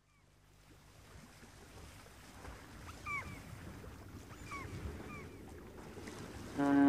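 Wind and choppy sea waves, growing louder as the sound comes in, with a few short high chirping bird calls about three and five seconds in. A loud horn-like tone starts just before the end.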